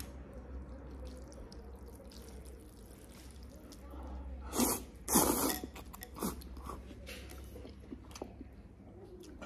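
A man slurping beef noodle soup: two loud slurps about four and a half and five seconds in, with quieter chewing and mouth sounds around them.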